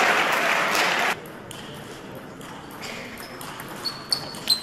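Table tennis ball striking bat and table: a few sharp, ringing pings close together near the end. Before them, a wash of crowd noise and voices in the hall cuts off about a second in.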